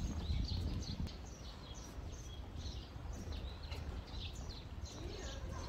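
Small birds chirping over and over, short high chirps, over a steady low outdoor rumble.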